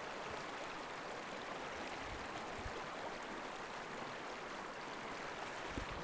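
Steady rushing of river rapids, a field recording of moving water.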